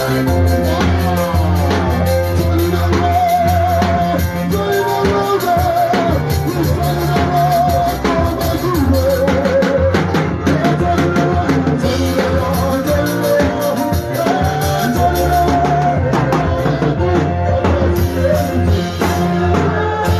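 Music with a drum kit and bass keeping a steady beat under a wavering melody line.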